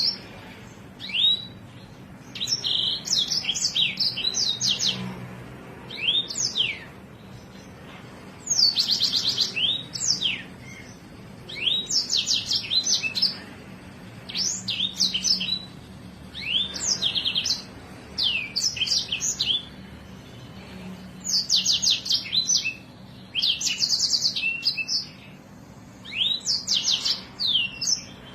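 A songbird singing in repeated short phrases, about one every two seconds, each a fast run of high, sharp notes mixed with downward-sliding whistles.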